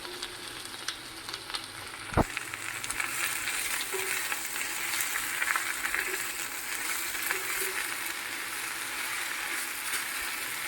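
Leafy greens sizzling as they fry in a little oil in a pan, stirred with scattered small clicks of the utensil. There is a single sharp knock about two seconds in, and the sizzling grows louder about three seconds in.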